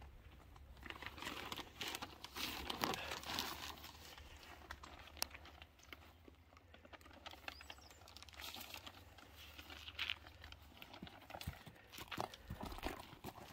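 Large plastic bag crinkling and rustling as it is handled and rubbed against a horse. It comes in several faint bouts, the strongest about two to three seconds in.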